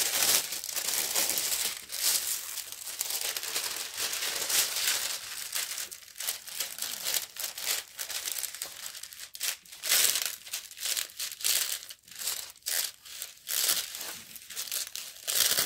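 Thin clear plastic protective film crinkling and rustling in irregular bursts as hands lay it back over a diamond painting's adhesive canvas and smooth it flat.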